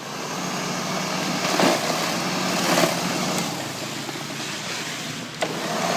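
Toro Power Shovel, a small electric snow thrower, starting up right at the beginning and then running with a steady motor hum as it clears snow.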